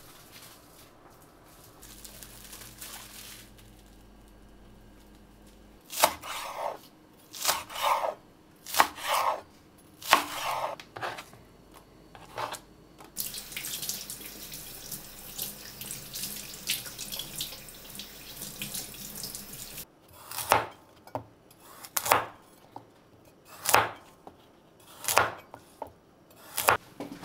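A santoku knife chopping vegetables on a cutting board: a run of single strokes, then a tap running into a sink for several seconds, then another run of strokes.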